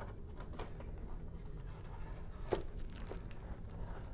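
Quiet handling of a folded cardboard game board as it is lifted out of its box and opened out: soft scraping with a few light taps, the clearest about two and a half seconds in.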